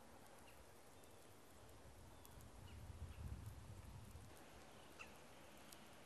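Near silence: faint outdoor background with a soft low rumble for about two seconds in the middle and a few faint, short high chirps.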